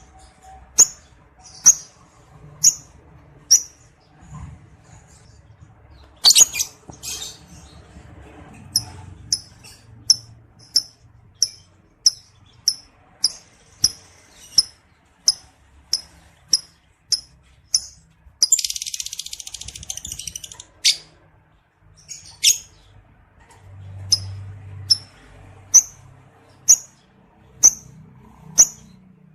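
Lovebird calling with short, sharp, high chirps about once a second. About two-thirds through comes a couple of seconds of rapid rattling chatter, the 'ngekek' call of a lovebird in breeding condition.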